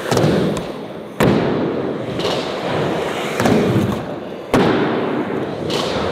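Skateboards popping and landing on flat ground: several sharp cracks, the two loudest about a second in and about four and a half seconds in, with wheels rolling on pavement between them.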